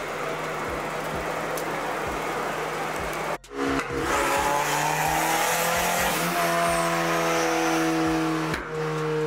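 Turbocharged car engine running under load on a chassis dynamometer, held at a nearly steady pitch while its fuel map is tuned. The sound breaks off abruptly about three and a half seconds in and comes back louder, with a strong steady engine tone.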